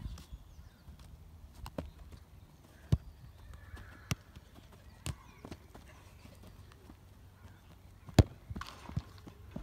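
Football being touched and tapped with the feet on artificial turf during dribbling feints: a few sharp, irregularly spaced knocks, the loudest about eight seconds in.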